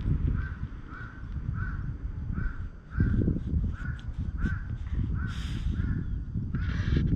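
A bird gives a steady run of short, evenly spaced calls, about two a second, over a loud low rumble of wind on the microphone. Just past the middle comes a short brushing rub as the cat's face presses against the camera.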